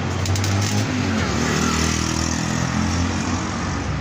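A motor vehicle engine running steadily, its pitch shifting slightly up and back down midway, over a wash of background noise.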